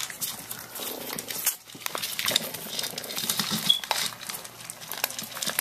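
Puppies eating dry kibble from a bowl set on newspaper: a quick run of small clicks as kibble and teeth knock the bowl, with paws rustling and crinkling the newspaper.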